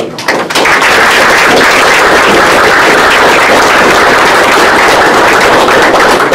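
Audience applauding loudly, many hands clapping in a dense clatter that starts about half a second in and holds steady.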